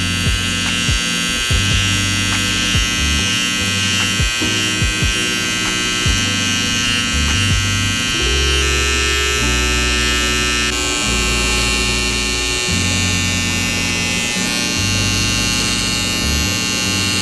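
Electric hair trimmer buzzing steadily as it lines up a beard, over background music with low notes changing every second or two.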